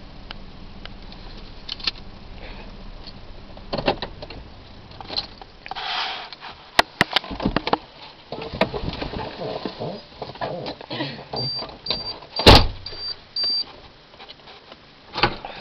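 A parked car: a steady low engine hum that dies away about five seconds in, then clicks and jangles like keys, a row of short high warning-chime beeps, and one loud clunk of a car door in the middle of the beeps.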